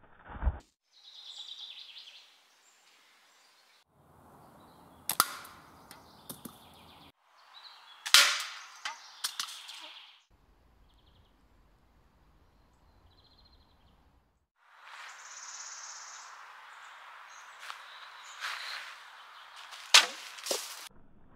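A series of shots from a homemade umbrella slingshot: sharp, loud cracks of the release and of the projectile striking the target, a handful of them spread across several short takes, with quiet outdoor ambience between.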